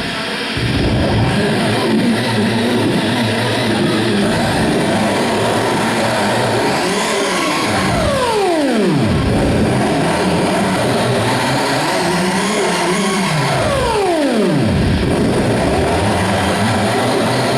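Loud, heavily distorted live band noise. Twice, about halfway through and again about six seconds later, a pitch sweeps steadily downward from high to very low over a second or two.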